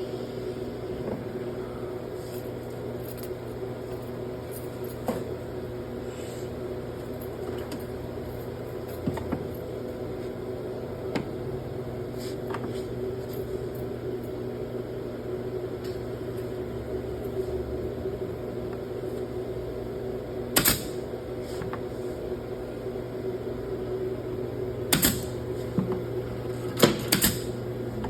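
Steady machine hum with several steady tones, with a sharp knock about three quarters of the way in and a few more clicks and knocks near the end.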